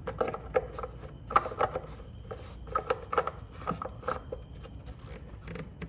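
Plastic engine oil filler cap being screwed back onto the filler neck by hand: a run of short clicks and scrapes, the sharpest about a second and a half in.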